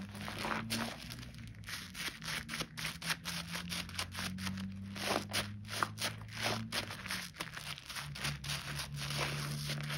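Soaked, mushy Bio Mio bio-soap being lathered into thick foam: a dense, wet crackling and squishing of foam and bubbles, with quick sharp clicks that come thickest in the middle.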